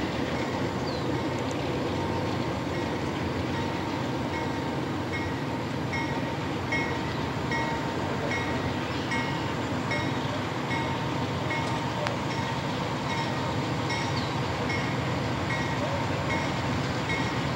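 A railroad grade-crossing bell ringing steadily, about two and a half strikes a second, over the continuous rumble of an approaching Union Pacific freight train.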